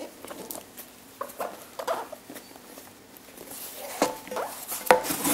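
Cardboard product box being handled and opened by hand: scattered scrapes, taps and rubbing of the flaps, getting louder near the end with a couple of short squeaks of cardboard sliding on cardboard.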